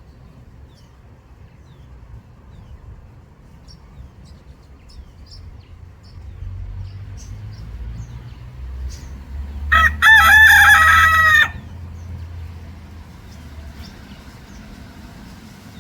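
A rooster crows once, about ten seconds in, a short crow of under two seconds, with faint high chirps of small birds around it.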